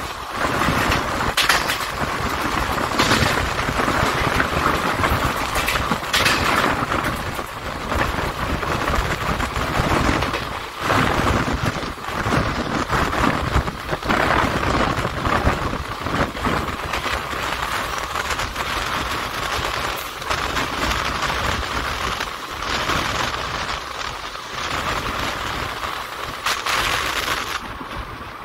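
Passenger train running, heard from on board a coach: a steady, dense rumble of wheels on the rails with irregular clanks and rattles.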